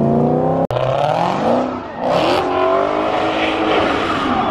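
Car engine revving hard in repeated climbing sweeps while the car spins donuts, with tyres spinning and screeching on the pavement. The sound cuts out for an instant under a second in.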